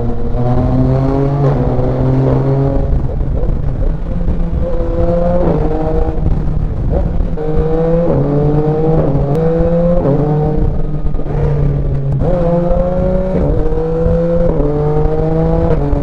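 Yamaha Tracer 900 GT's three-cylinder engine under hard acceleration, its pitch climbing and then dropping at upshift after upshift, over a steady rush of wind.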